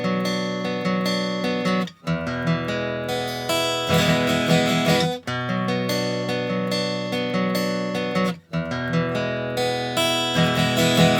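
Instrumental background music: sustained chords that change, with brief breaks about every three seconds.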